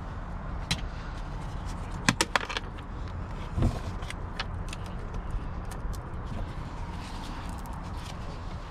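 Small plastic clicks and rattles of a car's interior door handle parts being handled, with a quick run of sharp clicks about two seconds in and a dull knock soon after, over a steady low rumble.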